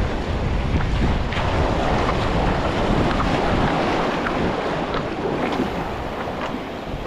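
Wind buffeting the microphone, heaviest for the first few seconds and then easing, over a steady wash of waves against the jetty rocks.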